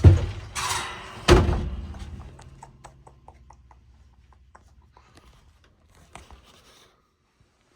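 Two heavy thunks about a second and a half apart, with a brief hissing rush between them, then scattered faint clicks and taps fading out.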